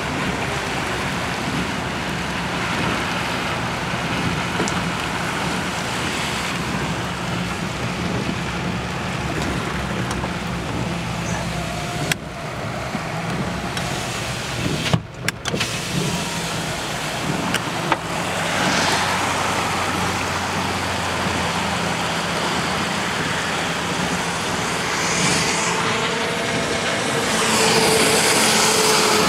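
Truck driving on wet roads, heard from inside the cab: a steady engine hum under continuous tyre hiss from the wet pavement. The hiss swells louder a few times in the second half, and the sound cuts out briefly twice near the middle.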